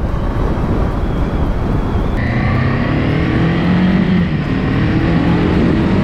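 Honda CB500X's parallel-twin engine running at road speed under heavy wind rush on the microphone. About two seconds in the rush thins and the engine's note stands out more clearly, its pitch shifting a little.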